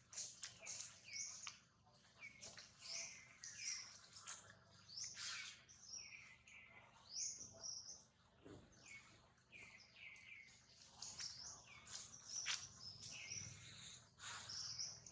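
Faint birdsong: small birds repeating short, high chirps, over and over, several to the second.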